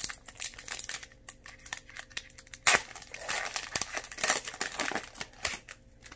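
Foil Pokémon booster pack wrapper crinkling and being torn open by hand. There are many small crackles, with the loudest rip about two and a half seconds in and dense crackling after it.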